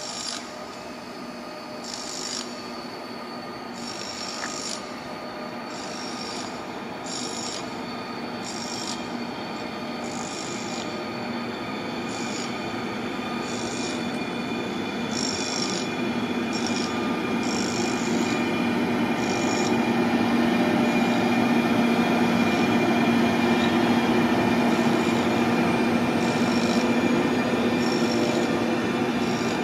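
ÖBB Taurus electric locomotive hauling a freight train, approaching and passing, growing steadily louder over the first twenty seconds, with a steady whine from its traction equipment. Short high squeaks recur every second or two.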